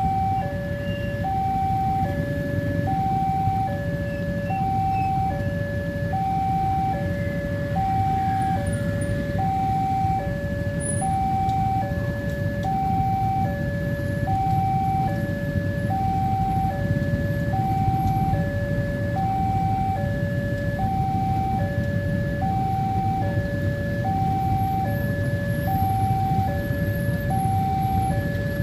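Indonesian railway level-crossing warning alarm sounding: an electronic two-tone signal that alternates steadily between a higher and a lower note, each held a little under a second, over a steady low rumble. The alarm signals that a train is approaching and the crossing is closed.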